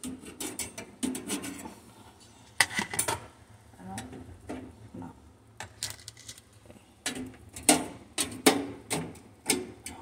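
Irregular scrapes, clinks and knocks of hard kitchenware as melted-on cheese is scraped off, coming in short clusters and busier in the last few seconds.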